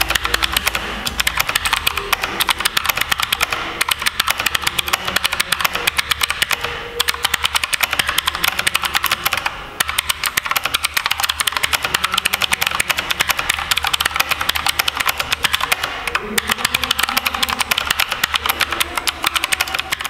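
Redragon Kumara K552 mechanical keyboard, its switches equivalent to Cherry MX green, being typed on quickly and steadily. It is a dense, continuous clatter of key clicks with a few brief pauses.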